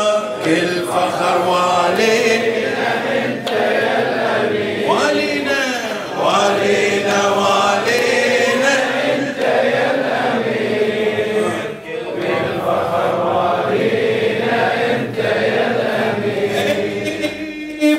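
A crowd of men chanting a celebratory Shia refrain (ahazij) together, led by a reciter's amplified voice.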